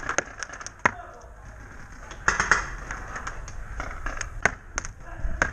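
Paintball markers firing: scattered sharp pops at irregular intervals, with a brief louder burst of noise a little over two seconds in.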